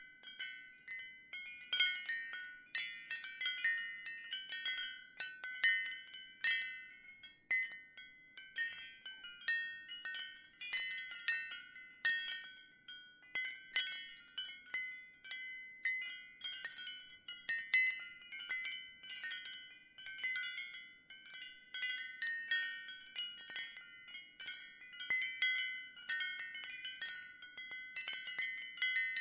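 Wind chimes ringing, their high notes struck at irregular moments and ringing on so that they overlap.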